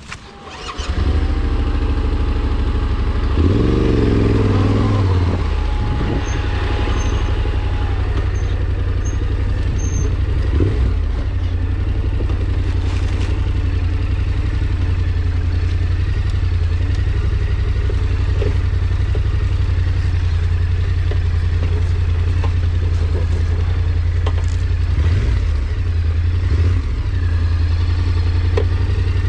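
A small vehicle engine comes on about a second in and runs steadily, revving up briefly a few times.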